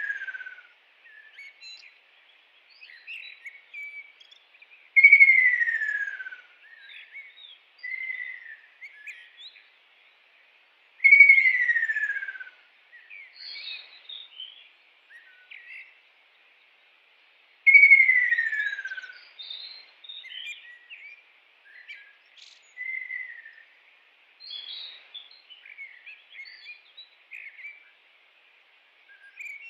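Kingfisher calling: a loud, clear whistle sliding downward over about a second and a half, repeated every six seconds or so, with quieter short chirps in between.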